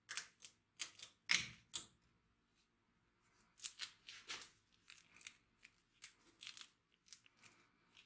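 Yellow masking tape on a sword's guard and handle crackling and tearing in short, irregular bursts as it is handled and peeled.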